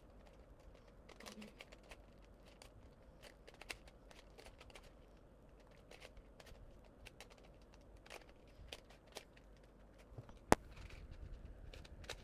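Irregular small plastic clicks and clacks of a stiff-turning dollar-store puzzle cube being turned during a solve, with one sharper, louder click about ten and a half seconds in.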